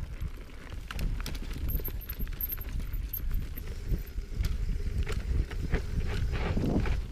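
Wind buffeting a chest-mounted GoPro's microphone while a mountain bike is ridden along a trail, with scattered clicks and knocks from the bike and tyres over the ground, more of them in the second half.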